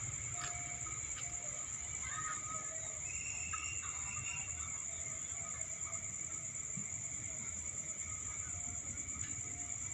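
Steady high-pitched chirring of crickets at night, over a faint low rumble.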